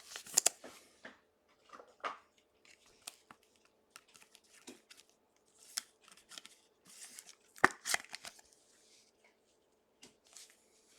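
Trading card packaging and cards being handled: intermittent crinkling, rustling and tearing of wrappers, with one sharp knock about two-thirds of the way in.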